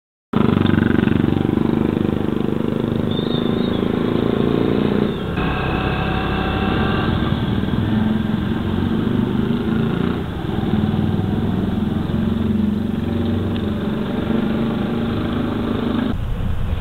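Engine and road noise of a moving vehicle, heard from inside it as it drives; a steady drone whose engine note shifts about five seconds in and again around ten seconds.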